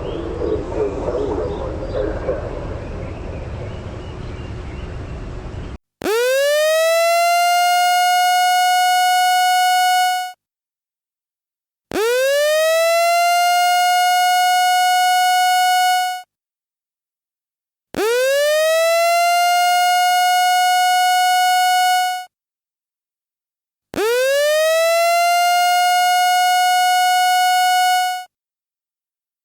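A warning siren sounding in four separate wails. Each rises quickly to a steady, high tone, holds for about four seconds and cuts off, with about a second and a half of silence between. It starts about six seconds in, after a stretch of a rougher, noisier sound.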